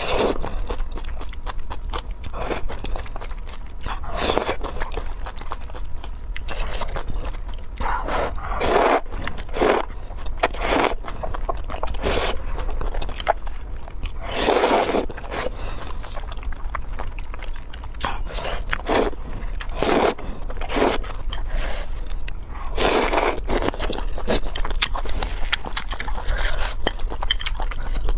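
A person eating close to the microphone: repeated loud slurps of thick noodles from a spicy red broth, with chewing and small clicks of chopsticks between them.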